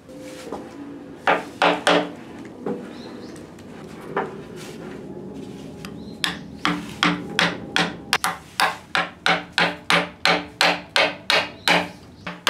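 A hammer strikes the hooped handle of a Japanese chisel, cutting into a wooden board. Each blow is a sharp knock with a short ring. Two blows come about a second and a half in and a couple of single blows follow. From about halfway there is a steady run of about three blows a second.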